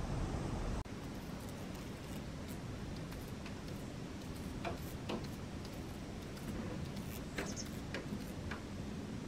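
Steady outdoor background noise that changes abruptly about a second in, then a handful of short, sharp ticks scattered through the second half.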